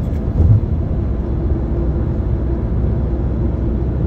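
Steady low rumble of tyre and engine noise inside a car's cabin while driving at highway speed, with one brief louder thump about half a second in.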